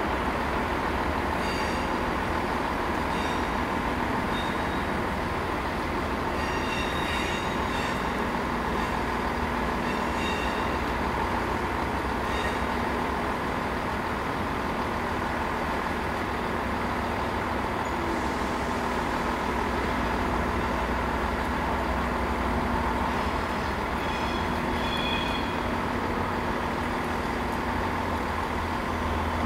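Class 67 diesel-electric locomotive running slowly into the station hauling its coaches, its engine making a steady hum, while the wheels squeal intermittently on the curved pointwork, in short high squeals several times.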